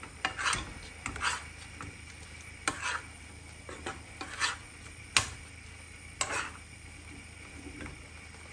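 Metal spoon stirring shrimp and mussels in a frying pan, with irregular scrapes and clinks of spoon and shells against the pan, the sharpest about five seconds in. A faint sizzle of the butter sauce runs underneath.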